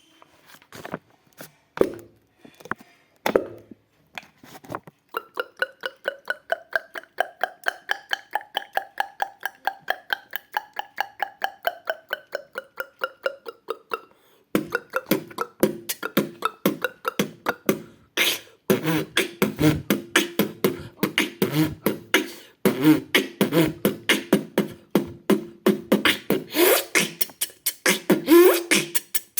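Beatboxing that imitates water: a few scattered mouth clicks, then a long run of rapid clicks whose pitch rises and falls like dripping water, about 14 seconds in giving way to a faster, denser beat with low bass sounds.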